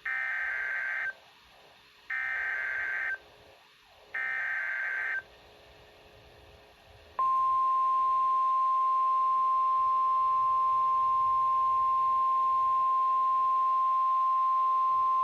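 Emergency Alert System SAME header: three one-second bursts of warbling digital data tones, a second apart, followed after a short pause by the long, steady single-pitch 1050 Hz NOAA Weather Radio attention tone, announcing a tornado warning.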